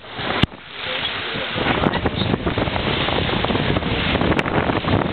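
Wind buffeting the microphone on board a sailboat under way, over the wash of the sea. A brief lull at the start ends with a click, then the gusting noise carries on steadily.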